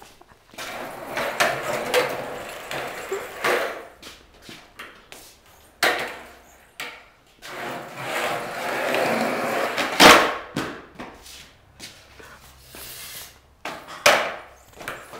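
Skateboard wheels rolling on a concrete floor in two stretches of a few seconds each, with the wooden board clattering down onto the concrete several times; the loudest smack comes about two-thirds of the way through.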